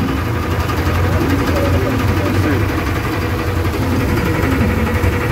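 An engine running steadily at idle, a constant low hum, with faint voices chattering in the background.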